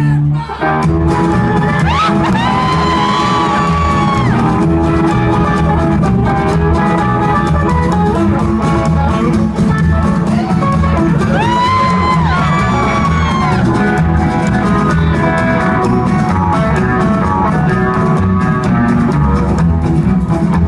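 A rock band playing live, guitar to the fore over a steady beat, with two rising, held lead phrases about two seconds in and again about twelve seconds in.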